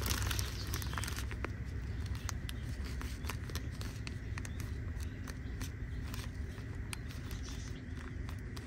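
Faint crinkling and small irregular clicks of a plastic zip-top bag being handled and pressed shut, over a steady low rumble.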